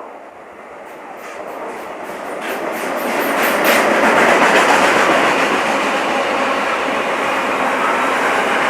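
Freight train behind a WAG-9 electric locomotive approaching and rolling past, building to a steady loud rumble about four seconds in, with a quick run of wheel clicks over the rail joints as it comes close. No horn sounds.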